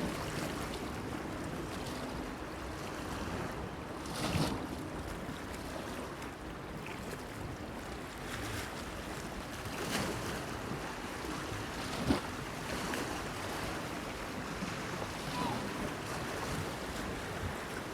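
Small waves lapping against a breakwater under a steady wash of water and light wind, with a few louder slaps and splashes at irregular intervals, the sharpest about two-thirds of the way through.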